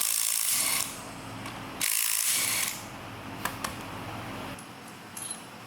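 Pneumatic air ratchet running in two short bursts, each under a second, as it spins out differential bearing cap bolts, followed by a couple of light metal clicks.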